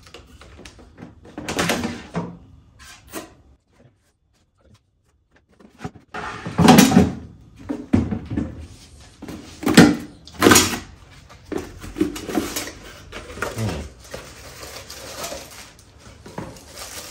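Plastic clunks and scrapes as the basket drawer of a Philips Airfryer XXL is pulled out and handled, the loudest knocks a bit under a third of the way in and just past halfway. Softer rustling of cardboard packing inserts being pulled from the basket follows, and a silent gap of about two seconds comes near a quarter of the way in.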